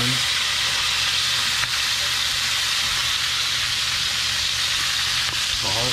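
Slices of whitetail deer heart and onion rings frying in a cast iron skillet, a steady sizzle over a low hum, with a fork turning the pieces now and then.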